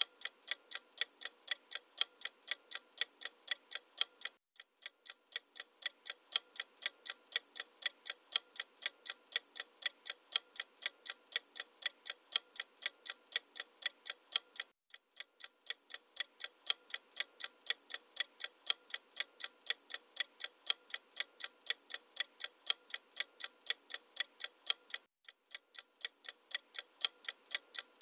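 Clock-ticking countdown sound effect: sharp, evenly spaced ticks, a few a second, with brief breaks about four seconds in, near the middle and near the end.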